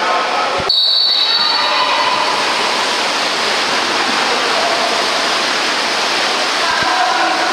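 Steady noise of a water polo match in the pool: splashing water and crowd hubbub. A shrill referee's whistle sounds suddenly about a second in and fades away over about a second.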